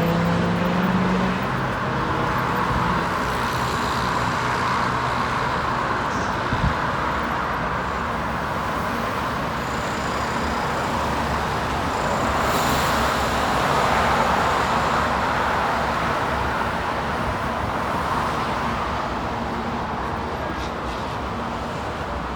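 Steady city road traffic: a continuous wash of car and engine noise, with one vehicle's engine tone fading out in the first second or so and a single short knock about six and a half seconds in.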